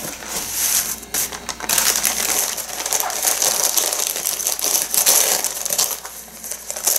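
Newspaper packing rustling and crinkling as a newspaper-wrapped part is handled and pulled out of a cardboard box, with paper rubbing against the cardboard.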